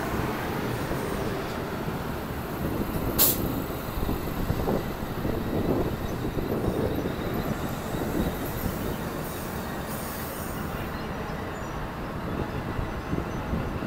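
NSW TrainLink Xplorer diesel railcar set running along the platform road with a steady rumble of engines and wheels on the rails. There is a sharp click about three seconds in and a few lighter knocks after it.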